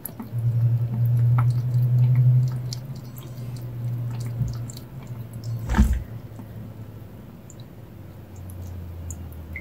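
A kitten lapping water from a pet drinking fountain, with small ticks and drips, over a low hum that is loudest in the first few seconds and comes back weaker near the end. A single sharp knock just before the middle.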